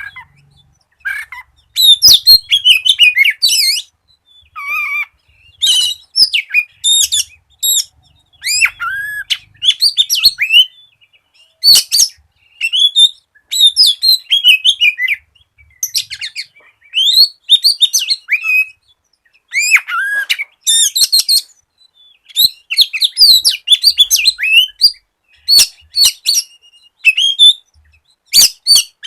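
Oriental magpie-robin (kacer) in full song: phrases a second or two long of quick, varied whistles, sweeping notes and sharp clicks, with short pauses between.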